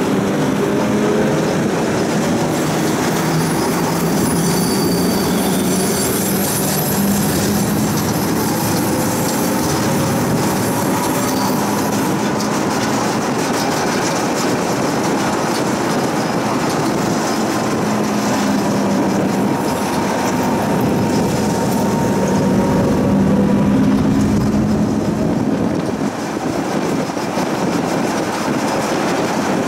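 Tram running along a city street, heard from on board: a steady rumble of steel wheels on rails and running gear, with a faint whine that slowly shifts in pitch.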